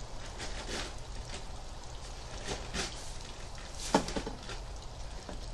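A plastic bag rustling as it is handled, with scattered small clicks and one sharp knock about four seconds in, over a low steady rumble.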